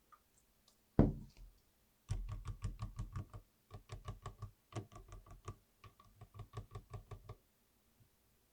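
Custom 60% mechanical keyboard with lubed switches being typed on in fast runs of deep, thocky keystrokes, with a few short pauses. One single heavier knock comes about a second in, before the typing starts.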